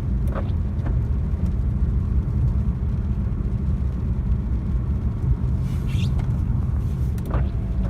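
1995 BMW E36 M3 cruising in a higher gear, heard from inside the cabin: a steady low engine and road rumble with a few brief clicks. The drivetrain rattle the car suffers from is not showing in this higher gear.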